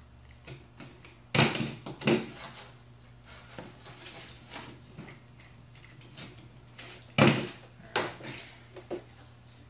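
Cardboard pieces being handled on a work surface: two sharp knocks in the first couple of seconds and two more about seven seconds in, with lighter taps and rustles between. A low electrical hum runs underneath.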